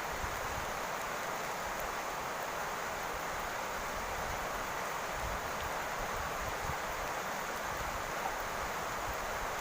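Steady rain falling on a roof: an even, unbroken hiss that holds the same level throughout.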